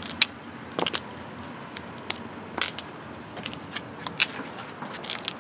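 Footsteps in Fabulicious POISE-501 5-inch stiletto mule slides on concrete: sharp, irregularly spaced heel clicks, some loud and some faint.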